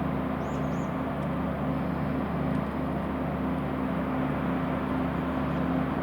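A tugboat's diesel engine running steadily: an even, low drone with a few steady low tones over a noisy hiss.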